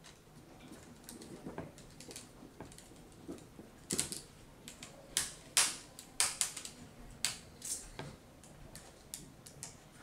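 Irregular sharp clicks and taps from hands working on a laptop's plastic parts. They are sparse and faint at first, then louder and closer together from about four seconds in.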